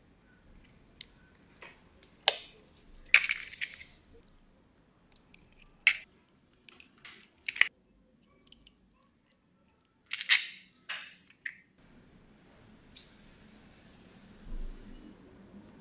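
Eggs cracked against a glass bowl, a series of sharp cracks and taps. Near the end, granulated sugar is poured into the glass bowl with a steady hiss lasting a couple of seconds.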